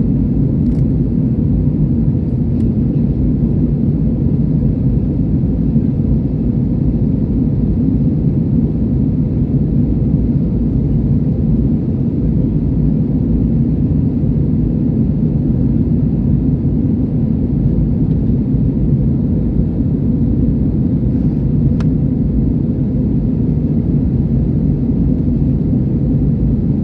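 Airliner cabin noise in flight: a steady, loud low rumble that does not change, with two faint ticks, one about a second in and one near the end.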